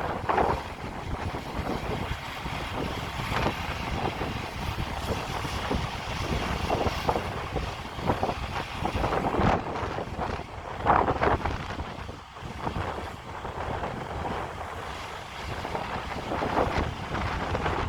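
Wind buffeting the microphone in a gusty, uneven rush, with brief louder bursts every few seconds.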